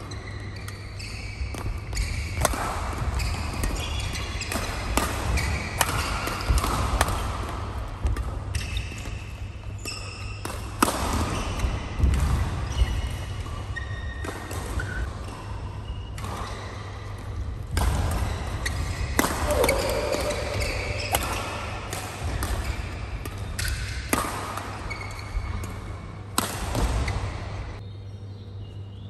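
Badminton rally: rackets striking a shuttlecock again and again at an uneven pace, with shoes squeaking on the court mat between hits, echoing in a large hall.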